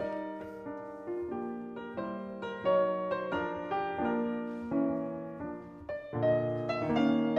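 Grand piano playing alone, chords under a melody, each note struck and fading.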